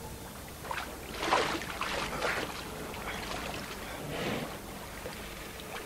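Sea water splashing and sloshing around a swimmer, in uneven surges about once a second.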